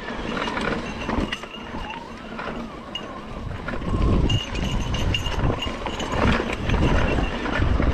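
Mountain bike ridden over loose, rocky ground: tyres crunching on stones and the bike rattling with irregular knocks over the bumps.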